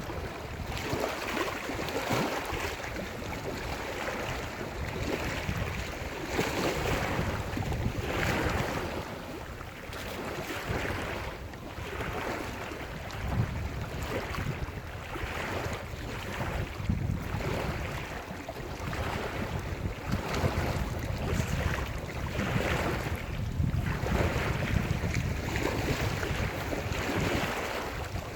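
Lake surf breaking on the shore, waves washing in every couple of seconds, with wind rumbling on the microphone.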